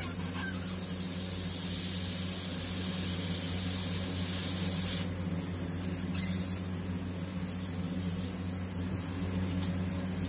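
Airbrush hissing as it sprays white paint, one long spray for about the first five seconds, then a short burst about six seconds in and fainter spraying after. A steady low hum runs underneath.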